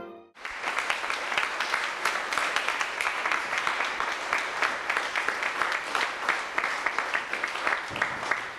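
A large crowd applauding: dense, steady clapping that starts abruptly just after a burst of music is cut off, and begins to fade near the end.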